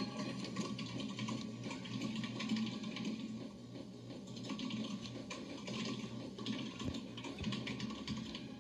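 Cassette tape playing back through a Sanyo portable boombox's speakers: a steady, noisy wash of sound with no clear tune or voice.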